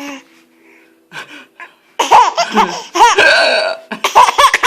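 Baby laughing in a quick run of short, high-pitched belly-laugh bursts, starting about two seconds in.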